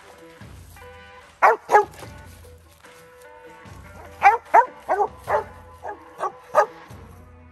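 Young mountain cur barking treed at the base of a tree: two barks, then after a pause a run of about eight barks, the sign that it has a squirrel up the tree. Faint background music runs underneath.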